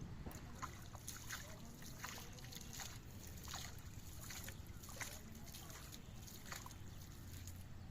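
Faint water sounds: small splashes and sloshing, a short splash every half second or so, over a low steady rumble.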